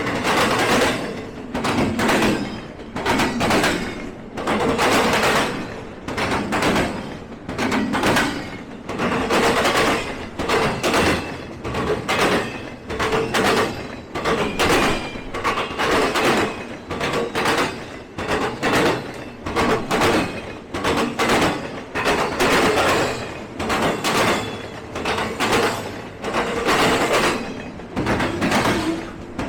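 Freight train rolling past, its wheels clattering in repeated groups of loud knocks about once a second as each car's trucks cross the rail joints, over a steady rolling rumble.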